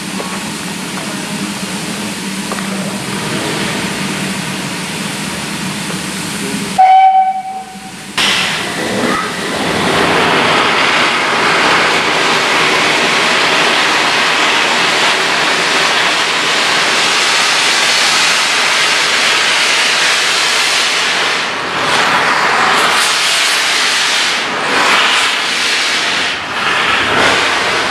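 Steam locomotive hissing steam, with one short, loud whistle blast about seven seconds in. After the blast the hiss grows louder as the steam rolls over.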